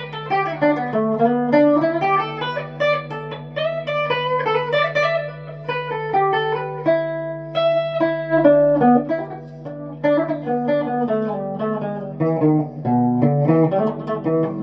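Les Paul-style electric guitar playing lead lines: quick single-note runs, with a note held and bent about eight seconds in. A steady low tone sounds underneath throughout.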